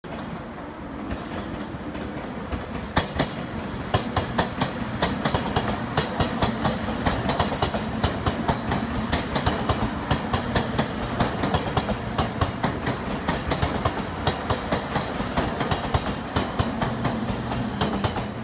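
A JR Kyushu 883 series "Sonic" electric train passing, its wheels clicking in a quick, regular rhythm over rail joints and points, over a steady rumble. The clicking starts about two and a half seconds in.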